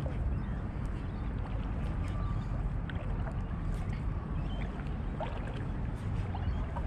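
Steady wind rumbling on the microphone, with faint scattered ticks and clicks over it.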